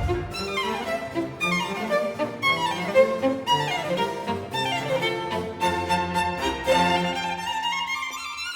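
Background music led by violin, with bowed strings playing fast descending runs.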